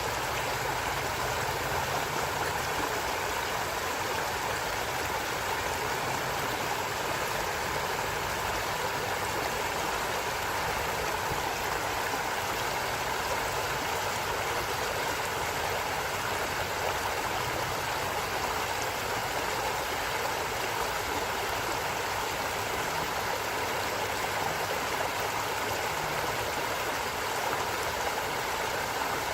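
A stream of water running and gurgling steadily over rocks.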